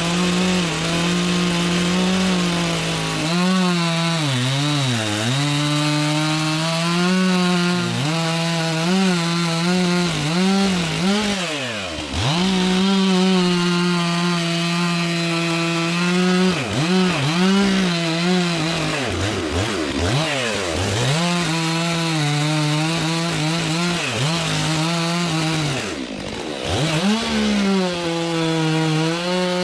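Chainsaw running at high revs through a cut, its pitch sagging and recovering again and again under load. Three times it drops right down briefly and picks back up.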